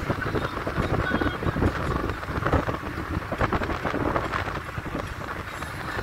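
Wind rushing and buffeting against the microphone from a moving car, over the rumble of the car on the road.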